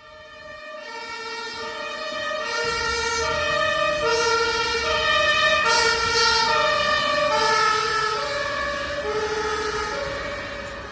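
German ambulance two-tone siren (Martinshorn) alternating between two notes a fourth apart, with vehicle rumble underneath. It grows louder toward the middle, then fades.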